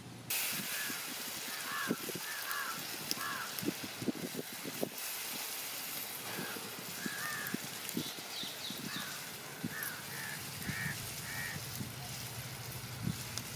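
Crab fry masala being stirred in a pot with a wooden spatula: irregular scrapes and soft knocks against the pan over a steady hiss, with birds chirping repeatedly in the background.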